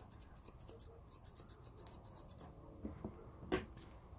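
Straight grooming scissors snipping through the hair on the edge of a Westie's ear in a quick run of small, faint cuts that stop a little after halfway, followed by one sharper click near the end.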